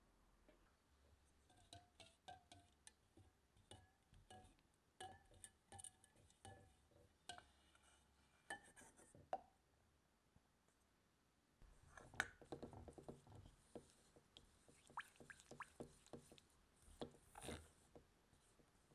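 Faint clinks of a wire whisk against a ceramic mixing bowl as egg is beaten. After a short pause come soft scrapes and clinks of a silicone spatula stirring melted chocolate and butter in a stainless-steel bowl resting on a glass bowl.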